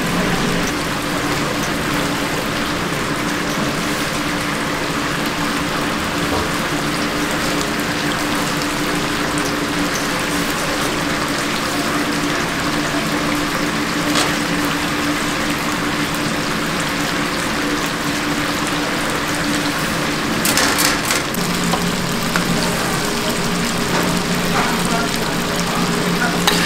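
Chicken pieces deep-frying in large woks of oil: a steady sizzling hiss with a steady low hum beneath it. A few metal clinks from tongs and a wire strainer, the loudest a short cluster about twenty seconds in.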